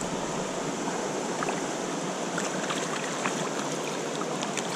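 Mountain stream flowing, a steady rush of water, with many small splashy ticks scattered through it.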